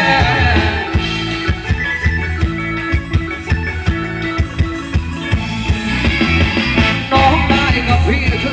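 Live band playing Thai ramwong dance music with a steady drum beat.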